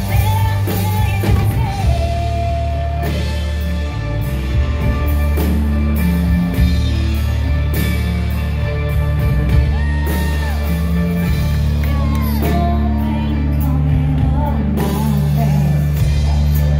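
Live band music: a woman singing over electric guitar and a drum kit.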